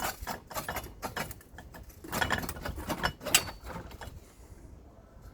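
Quick runs of mechanical clicking and rattling from something being handled, dying away about four seconds in.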